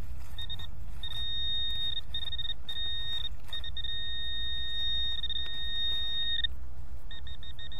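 Metal detector signalling a buried target with a single high electronic beep tone. The tone switches on and off in short blips and two long held stretches, then turns into rapid short pulses near the end, over a low steady rumble.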